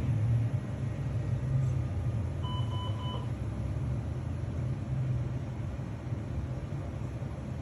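Three short electronic beeps in quick succession, all at the same pitch, about two and a half seconds in, over a steady low rumble.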